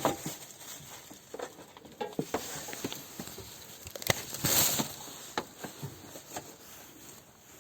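Scattered light knocks and clicks of objects being handled, with a brief hissing rush about halfway through.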